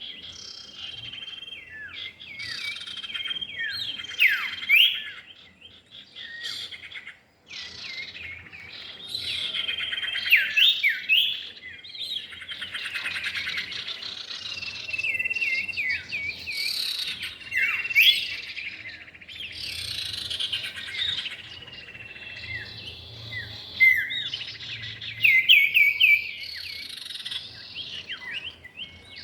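Common iora (cipow) song and calls, male and female: held whistled notes, quick sweeping chirps and stretches of rapid chattering, one after another with only short gaps.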